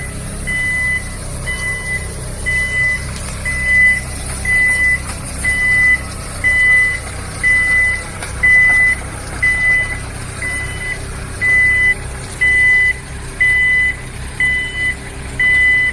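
Travel or reversing alarm on a Dikkwell DW 27S mini excavator, beeping a single high tone about once a second, over the steady low running of the machine's engine.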